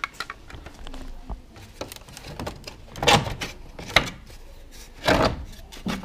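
Peugeot 307 plastic rear light cluster being pulled out of the car body by hand, with a series of plastic knocks and scrapes, the loudest about three, four and five seconds in.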